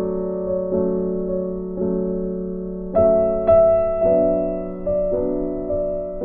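Background music: slow, gentle keyboard chords, struck about once a second and left to ring.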